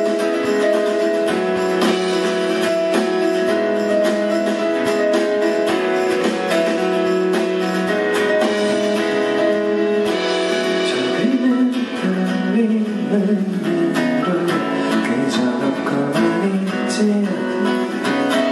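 Steel-string acoustic guitar played solo, strumming chords of a song.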